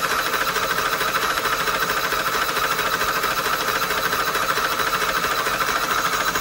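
Small electric motor and plastic gear train of a CFM LEAP turbofan building-block model running steadily, spinning the fan, with an even, fast whirring buzz.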